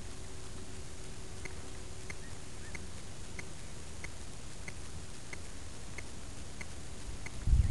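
Low rumble of light wind buffeting the microphone of a model rocket's onboard camera as it waits on the pad, with faint sharp ticks repeating about every two-thirds of a second. A louder low buffeting bump comes near the end.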